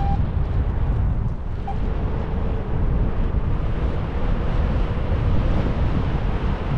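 Steady rush of flight airflow buffeting the microphone during a paraglider flight, heaviest in the low end. Two brief faint beeps sound, one at the start and another under two seconds later.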